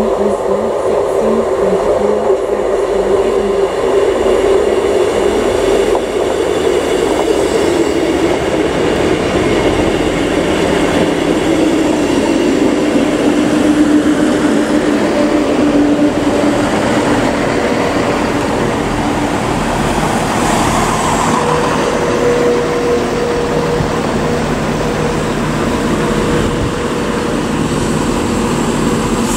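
ScotRail diesel multiple units, a Class 158 and then a Class 170 Turbostar, running through the station: a steady diesel engine drone with wheel and rail noise, its pitch shifting a few times.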